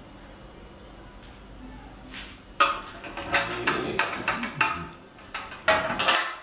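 Dark metal baking tin clattering and knocking against a gas hob's grates as it is set down and shifted about: a run of sharp knocks starting a couple of seconds in, then a few more near the end.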